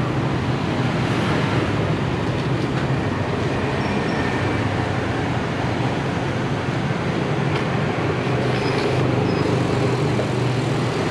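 Steady rumble of street traffic: a constant, even noise with no distinct events standing out.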